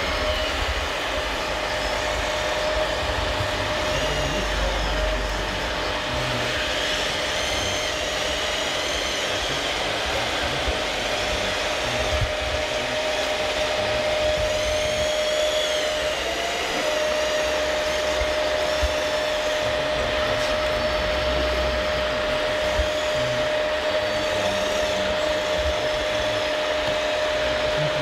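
Hydraulic RC Komatsu model excavator working its boom and bucket: the hydraulic pump runs with a steady whine and hiss. The tone drops out briefly about halfway through, then carries on, with faint rising and falling sweeps as the controls move.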